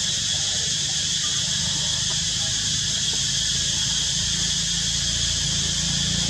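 Steady high-pitched drone of an insect chorus in tropical forest, with a steady low rumble underneath.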